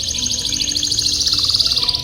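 Domestic canary singing a long, fast rolling trill of rapid high notes, with a short lower run of notes near the end.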